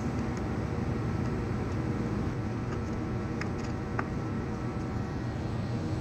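Steady low background rumble, with a few faint light clicks and taps about midway as the plastic base of a car side mirror is pressed into place against the door frame.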